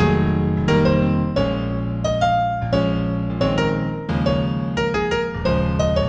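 Slow New Age piano-toned keyboard music in A minor, made in a composing app: a melody rising and falling over sustained low chords, a new note about every half second.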